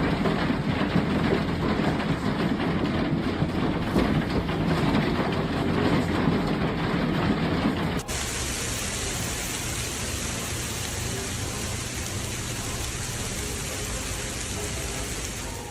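Storm noise of rain and wind, heavy and rumbling for the first half, then changing abruptly about halfway to a steadier hiss of rain.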